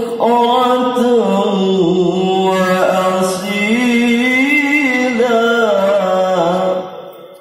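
A man reciting the Qur'an in melodic tilawah style over a PA loudspeaker. He holds long notes that rise and fall with ornaments. The phrase ends and fades out about seven seconds in.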